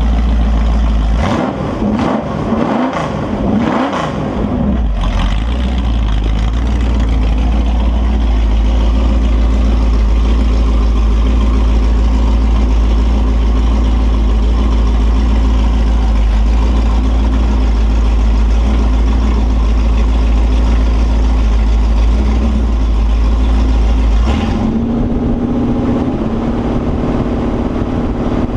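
Holden 355 stroker V8 running on an engine test stand: the revs rise and fall a few times early on, then hold steady for about twenty seconds before dropping back to a lower idle near the end. A fresh engine being run in to bed in the cam and lifters.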